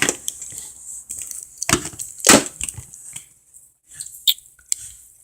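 A plastic action figure being handled and turned over, giving a few scattered knocks and clicks, the loudest two about two seconds in, with lighter ticks later.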